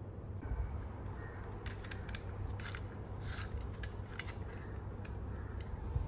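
The crumbling old rubber tire of a Xiaomi Roborock robot vacuum wheel is being scraped and picked off its plastic wheel with a small metal blade and fingers: faint, irregular scratching and crackling. The tire has disintegrated and gone sticky.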